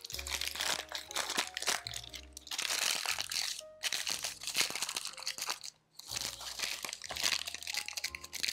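Crumpled parchment paper crinkling and crackling as hands press it down into a square baking pan, in spells that pause briefly twice.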